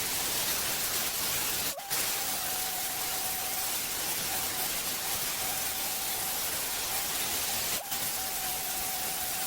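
Abrasive blast nozzle running, a steady hard hiss of air and grit with a thin steady whistle through it, stripping a truck frame. It briefly cuts out twice, about two seconds in and near the end.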